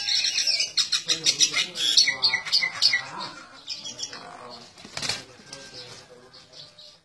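Rooster and a small bird scuffling: rapid high chirps and squawks, with wings flapping and one sharp flap or hit about five seconds in. The sound cuts off suddenly at the very end.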